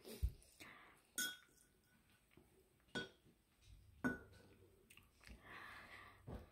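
Metal spoon and chopsticks clinking against a ceramic bowl while eating noodles: about five sharp, separate clinks, each with a brief ring.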